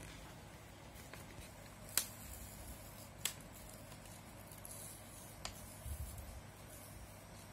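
Quiet handling of paper and card, with three sharp clicks or taps about two, three and five and a half seconds in, the first the loudest.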